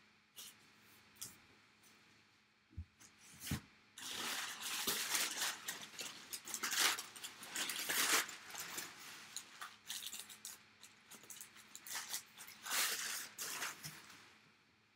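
Packaging being rustled, crinkled and torn open in irregular bursts as the next collectible is unwrapped, after a couple of soft knocks.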